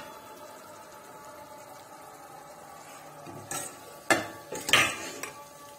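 A serving spoon knocking and clinking against dishes about four times in quick succession, starting about three and a half seconds in, after a quiet stretch with a faint steady hum.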